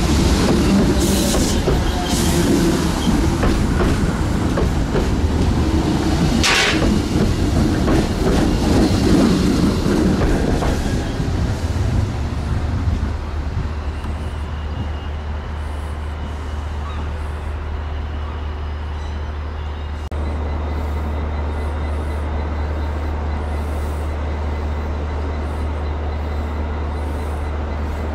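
Train rolling through the station, wheels clattering over the rail joints, with a brief hiss about six seconds in. After about twelve seconds the clatter fades to a steady low rumble.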